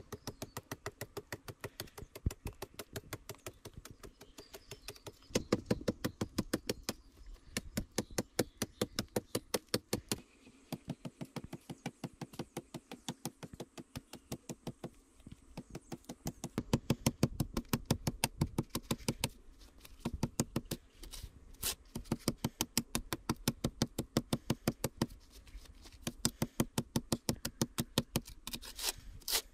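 A knife blade cutting and scraping into hard, dry red clay soil in quick, regular strokes, several a second, in runs broken by short pauses.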